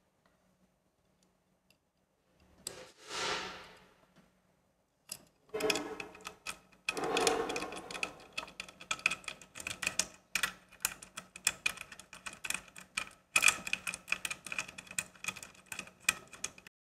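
Wera Joker combination ratchet spanner being worked back and forth on a nut, its ratchet mechanism clicking rapidly in quick runs with short pauses. A brief rasping sound comes about three seconds in, before the clicking starts.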